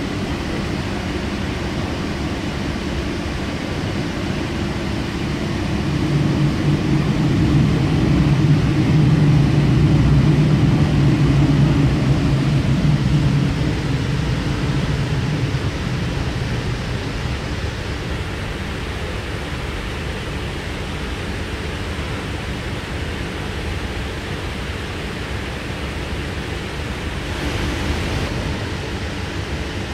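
Running noise of a Sydney Trains K-set double-deck electric train, heard inside the carriage while under way: a steady rolling noise. A low hum grows louder for several seconds in the first half, then fades. A brief rush comes near the end.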